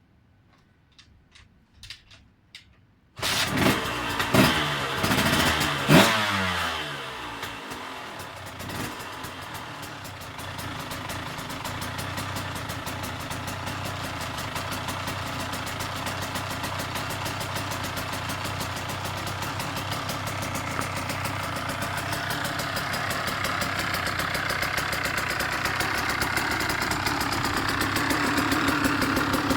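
Stock 2018 KTM 125 SX single-cylinder two-stroke engine: a few light clicks, then it fires about three seconds in. It is blipped twice with the revs falling away after each, then settles into a steady idle that grows a little louder toward the end.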